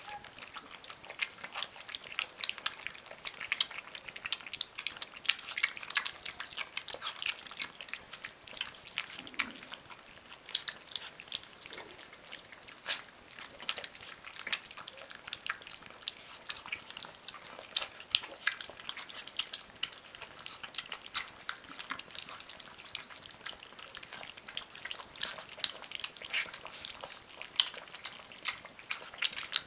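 Three 24-day-old Rhodesian Ridgeback puppies lapping and chewing soaked food rings: a dense, continuous run of wet smacks and clicks.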